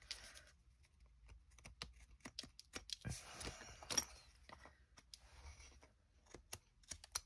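Large scissors snipping through thin cardstock: faint, irregular clicks of the blades closing, with a slightly longer cutting rustle about three seconds in.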